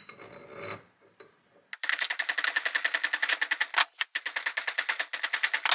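Hand socket ratchet clicking rapidly and evenly, about a dozen clicks a second, starting a little under two seconds in and pausing briefly once.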